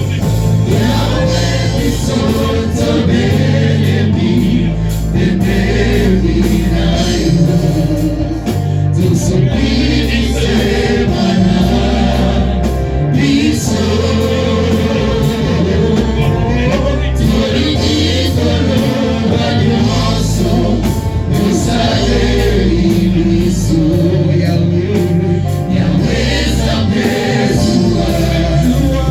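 Gospel choir singing with a band, over heavy bass and a steady drum beat.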